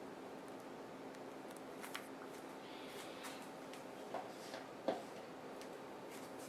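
Faint scraping and a few light taps of a knife spreading spackle frosting on a fake cake, over a steady low hum; the sharpest tap comes about five seconds in.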